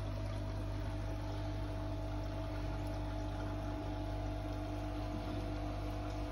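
Steady hum of an aquarium pump with water bubbling in the tank.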